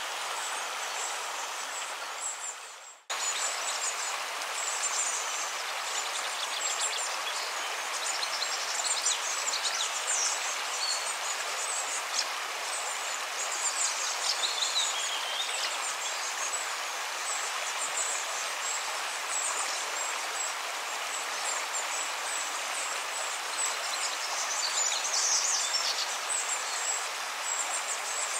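Steady rush of flowing water with birds chirping now and then, a nature ambience bed; it drops out for an instant about three seconds in and comes straight back.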